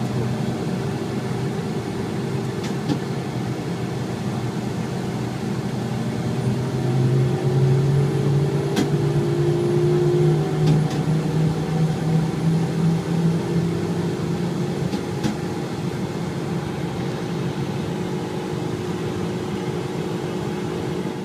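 A military patrol vehicle's engine and road noise, heard from on board while driving: a steady drone that grows louder and deeper from about seven seconds in, holds for several seconds, then eases back. A few faint ticks.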